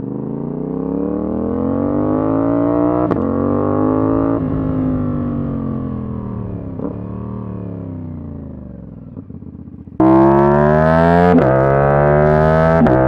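CFMOTO 450SR S parallel-twin engine accelerating through the gears, its pitch climbing and dropping sharply at each upshift, then easing off with a slowly falling pitch. About ten seconds in the sound abruptly becomes much louder and brighter, and the engine pulls hard again with two more upshifts.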